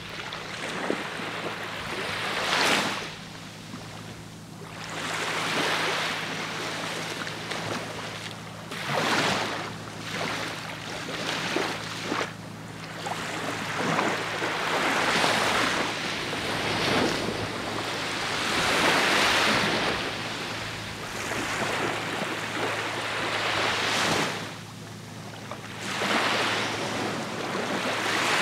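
Small waves breaking and washing up a sandy beach, the rush of water swelling and fading every few seconds, over a steady low hum.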